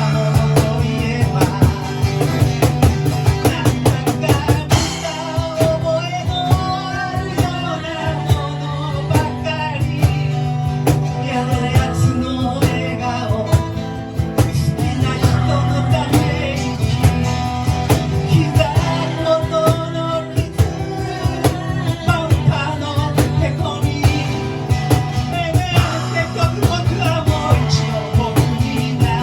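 Rock band playing loudly, with a drum kit keeping a steady dense beat under electric guitar and bass.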